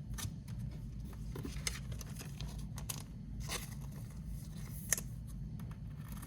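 Trading cards and a plastic card sleeve being handled, most likely a card being slid into the sleeve: soft swishes and small clicks, with one sharper click about five seconds in.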